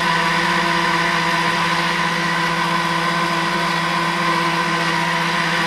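Homebuilt JU-01 gas turbine engine being spun up at the start of a test run: a steady mechanical whine-hum at constant pitch.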